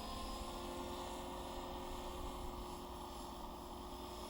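Electric RC helicopter (Align T-Rex 450 mechanics) flying at a distance: a steady whine from its brushless motor and rotors, with low wind rumble on the microphone.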